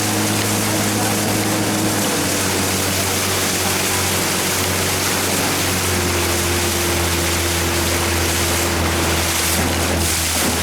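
1991 Evinrude 30 hp two-stroke outboard running steadily on the water, under the rush of water and wind. Its engine note shifts slightly about two seconds in and again around six seconds, and it runs without missing or coughing now that the timing is retarded and the reeds are new.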